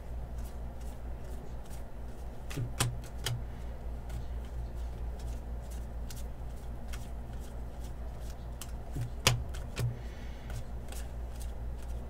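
Baseball trading cards being handled and flipped through, with scattered light clicks and snaps, over a steady low hum.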